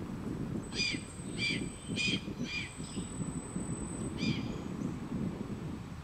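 A scavenging bird calling: four short calls about half a second apart, then one more about a second and a half later. They sound over a steady low rumble of wind on the microphone.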